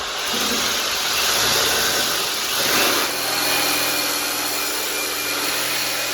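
Handheld power tool running steadily as it cuts into the tile grout around a toilet flange; the grout is so hard that the tool isn't cutting all the way through. A steady motor hum settles in about halfway through.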